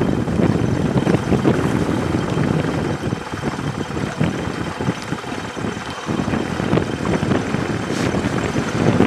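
Wind buffeting the camera's microphone outdoors over open water: a loud, uneven low rumble that eases briefly about five to six seconds in.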